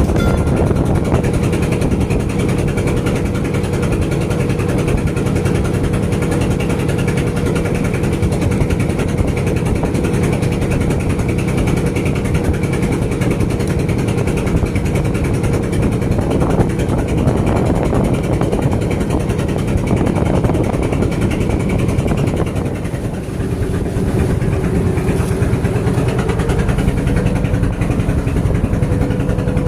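An engine running steadily with a constant low drone; its pitch shifts slightly about two-thirds of the way through.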